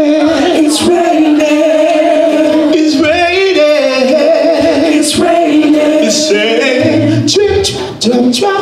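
Gospel praise team of male and female voices singing together through microphones, holding long, wavering notes.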